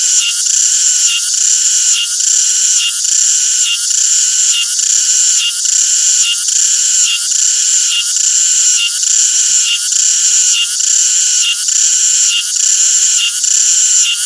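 Cicada calling: a loud, high buzz that pulses evenly, about two pulses a second.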